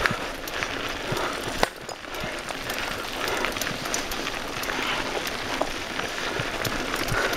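Mountain bike rolling over a rocky dirt trail: tyres crunching over loose stones, with frequent knocks and rattles from the bike on bumps and a sharper knock about one and a half seconds in.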